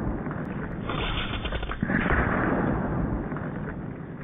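A .50 calibre AEA Challenger Elite big bore PCP air rifle firing at a cinder block target. A sudden loud report comes about two seconds in and dies away slowly.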